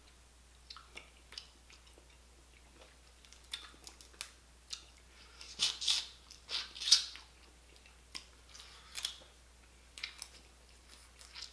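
Close-up eating sounds of boiled blue crab picked apart by hand: scattered small clicks and crackles of shell and wet chewing, with a cluster of louder crunches about six seconds in as a crab is bitten into.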